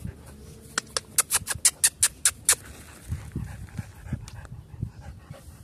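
Great Dane puppy making faint low sounds in the second half, after a quick run of about a dozen sharp clicks, roughly five a second.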